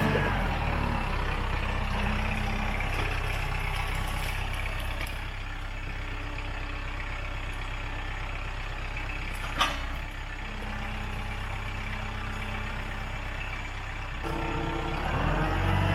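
Diesel tractor engine running steadily at low revs, with one sharp click about nine and a half seconds in. The engine gets louder near the end.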